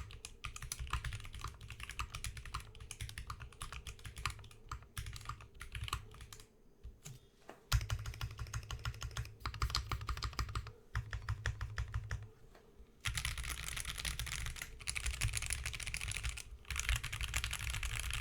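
Typing on a mechanical keyboard fitted with stock NovelKeys Silk Yellow linear switches: a fast stream of keystrokes with brief pauses. The runs get faster and denser in the second half.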